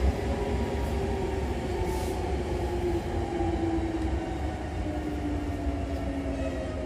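Hankyu commuter train heard from inside the car: low running rumble with the traction motor's whine falling steadily in pitch as the train slows.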